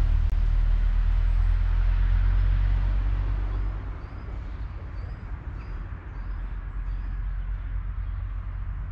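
Outdoor ambience of a park: a loud low rumble that eases after about three and a half seconds, under a steady hiss, with a bird chirping a run of short high notes about halfway through.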